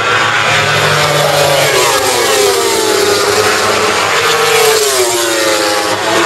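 Racing motorcycle engine at high revs on a long straight, its pitch climbing in steps through upshifts and dropping sharply twice.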